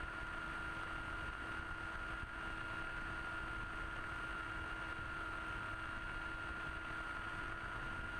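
Electric motor and propeller of a Blitz-RC Skysurfer model plane running steadily in flight with a constant whine, heard from the onboard camera, with wind rumbling on the microphone.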